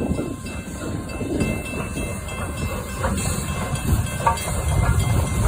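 Steam train hauled by locomotive 621 running past: a steady low rumble of the train with steam hissing and a few sharp clicks of wheels over the rails about three and four seconds in.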